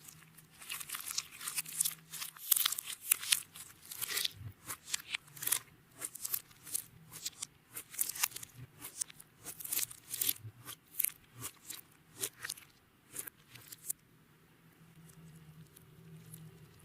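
Hands squishing and kneading clear slime: a fast run of sticky, crackling pops and clicks that stops about 14 seconds in.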